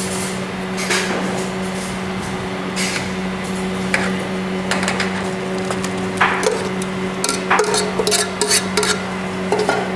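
Kitchen utensils and dishes knocking and clinking, scattered at first, then coming thick and fast for a couple of seconds near the end, over a steady machine hum.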